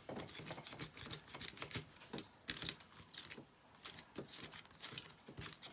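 Small irregular clicks and taps of a plastic spoon and fingers working in a plastic candy-kit tray, stirring a powdered candy mixture.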